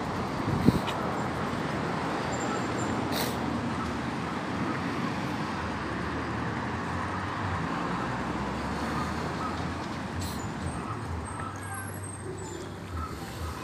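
Steady road traffic noise from cars on a city street, with a short knock about a second in.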